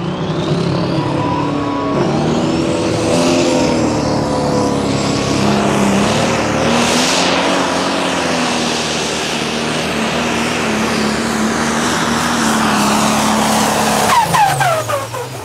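Pro Stock pulling tractor's turbocharged diesel engine running at full power under the load of the weight sled, holding a steady high pitch; about fourteen seconds in it comes off power and the pitch falls away.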